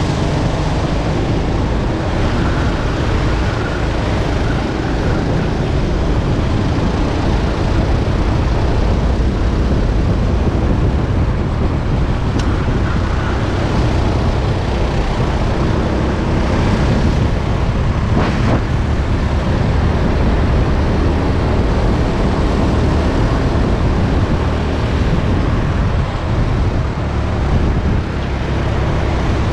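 Go-kart engine running at racing speed, with the rush of wind on the helmet camera's microphone.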